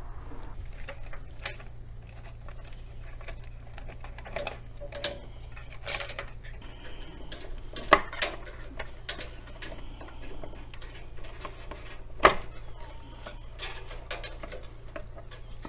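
Scattered small clicks and taps of hands working plastic clips and wire connectors as a refrigerator control circuit board is unplugged and pulled out. Two sharper clicks come about 8 and 12 seconds in, over a steady low hum.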